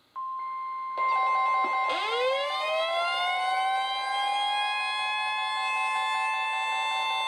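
Several weather alert radios going off at once: a steady high alert tone starts just after the opening, a pulsing alarm joins about a second in, and a siren-like tone rises in pitch and levels off about two seconds in. Together they form a layered, sustained alarm chorus.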